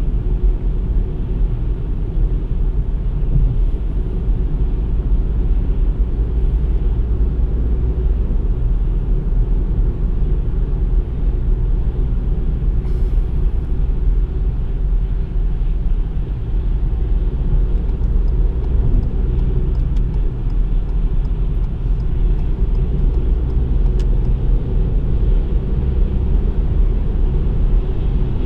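Ford Fiesta 1.0 EcoBoost three-cylinder turbo petrol car driving steadily at speed: a continuous low rumble of engine, tyre and wind noise that holds even throughout.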